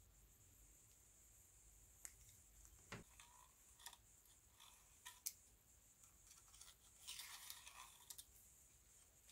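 Faint pencil scratching on masking tape and a few light clicks and taps as a steel ruler is handled, with a longer scratching stroke about seven seconds in.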